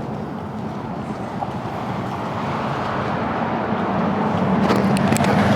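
Engine and road noise of a moving tour bus heard from inside, a steady hum that grows gradually louder, with a few light clicks near the end.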